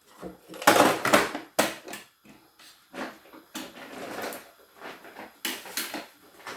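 Hands working at a Singer electric sewing machine: a run of clicks, knocks and rustling as parts of the machine and the thread are handled, the loudest about a second in and again near the end.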